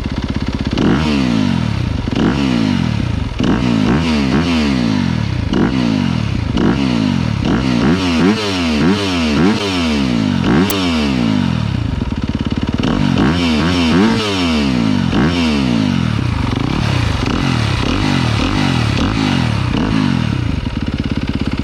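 Yamaha YZ250FX's single-cylinder four-stroke engine, fitted with an Akrapovic exhaust, revved in quick throttle blips over and over, the pitch rising and falling back each time. For the last several seconds it settles into a steady idle.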